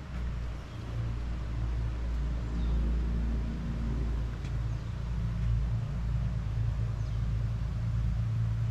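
A steady low rumble with a deep hum.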